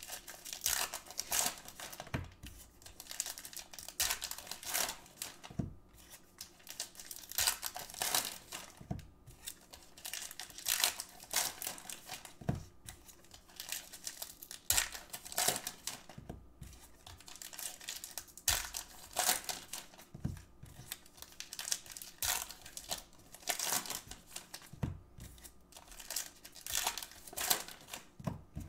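Plastic Topps baseball card pack wrappers being torn open and crinkled by hand, pack after pack, in irregular bursts.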